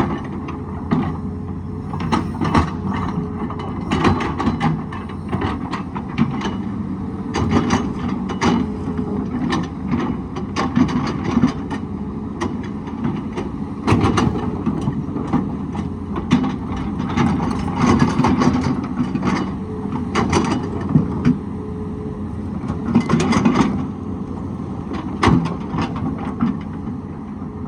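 Excavator's diesel engine running steadily under work, with frequent irregular knocks and clanks.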